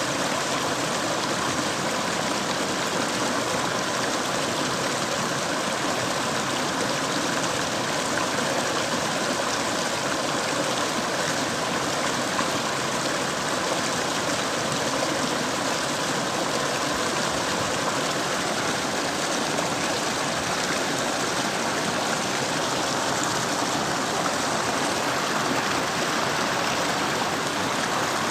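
Mountain stream flowing: a steady, even rush of running water that does not change.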